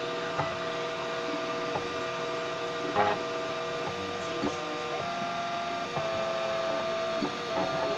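Homemade 3D printer's stepper motors whining as the print head lays down a layer, several steady tones that jump to a new pitch every second or so as the head changes direction, with small clicks at each change and a louder one about three seconds in.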